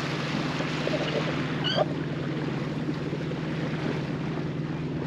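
A sailboat's inboard engine running steadily under way, a constant low drone over a rushing wash of water and air. A brief high chirp comes just under two seconds in.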